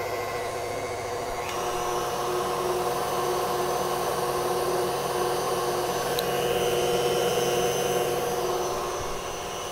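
KitchenAid Classic stand mixer running with its wire whisk, whipping heavy cream in a glass bowl: a steady motor whine with the whisk churning. It gets louder about a second and a half in and eases a little near the end. The cream is being beaten to mix in powdered sugar and vanilla.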